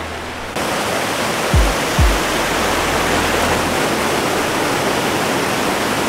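Steady rush of water from cascades tumbling over stepped rock terraces, cutting in suddenly about half a second in. Background music with low bass notes runs beneath it.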